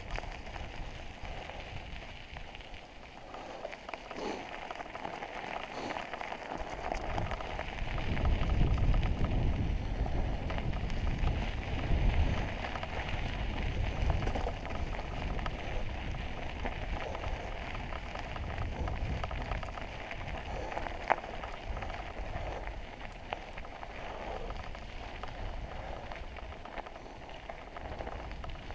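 Mountain bike tyres rolling over a gravel and dirt trail, a steady crackling crunch, with low rumbling gusts of wind on the microphone about eight to fourteen seconds in.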